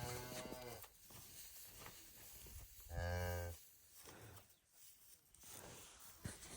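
Cow mooing: a low moo that ends just under a second in, then a second short moo about three seconds in.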